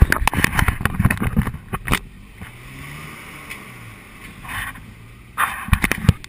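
Wind buffeting and handling bumps on a camera held out of the window of a moving car, over road noise. The buffeting is loudest in the first two seconds and again near the end, with a quieter, steady hum between.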